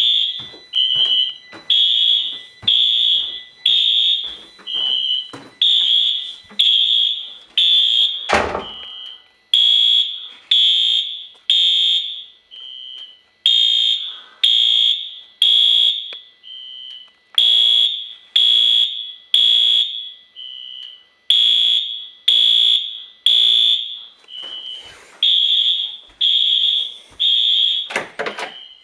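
Fire alarm horns on an addressable fire alarm system sounding in alarm after a pull station is pulled. They give loud, high-pitched blasts in the temporal-3 evacuation pattern: three blasts about a second apart, then a shorter, slightly lower beep in each gap, repeating. A single sharp knock sounds about eight seconds in, and another near the end.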